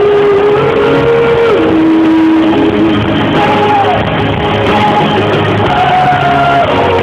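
Live pop-rock band playing in a large hall, with electric guitars and drums under a lead melody of long held notes that slide from one pitch to the next. The top end is missing, as it often is in a phone recording.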